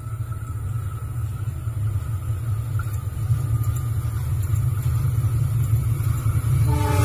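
Diesel-electric locomotive approaching on a passenger train, its low engine rumble growing steadily louder. Near the end the locomotive's horn starts to sound.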